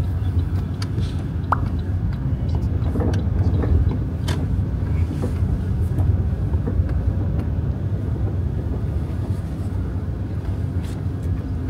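Car ride heard from inside the cabin: steady low engine and road rumble, with a few faint ticks.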